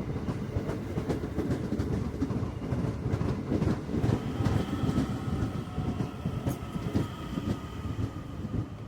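DART electric commuter train running on the rails, its wheels clattering over rail joints in a dense series of clacks. A steady whine comes in about four seconds in.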